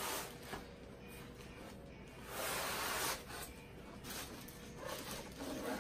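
Clear plastic packing bag crinkling and rustling as a heavy speaker wrapped in it is lifted and turned, with the loudest stretch of rustling about two and a half seconds in.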